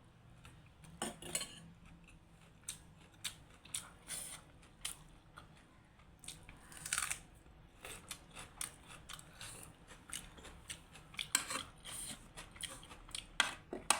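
Close-up eating sounds: chewing and mouth smacks over a meal of buff momo, with irregular short clicks and crunches, more frequent in the second half.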